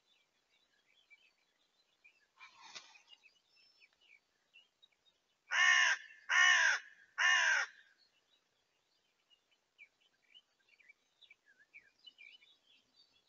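Common raven calling three times in quick succession, harsh croaking calls of about half a second each, part of ravens harassing a roosting Eurasian eagle-owl. A fainter rough sound comes a few seconds before the calls, and small birds chirp faintly throughout.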